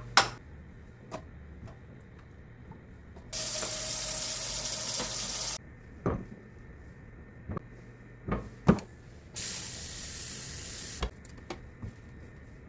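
Kitchen tap running twice in bursts of about two seconds, with several sharp knocks around and between them.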